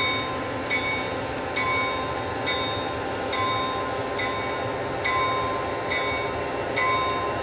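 A sound-equipped model diesel locomotive ringing its bell about once a second, over the steady rumble of the running model train.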